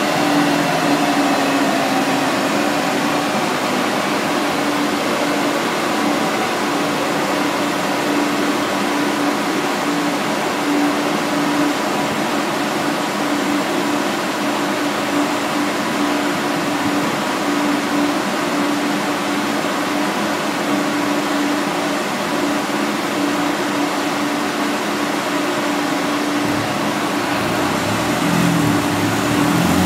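Steady mechanical whir with a rush of air from a chassis dynamometer setup, typical of the dyno's cooling fan and spinning rollers. A faint whine slowly falls in pitch in the first few seconds, as of rollers slowing. Near the end the car's engine note comes in lower and shifting.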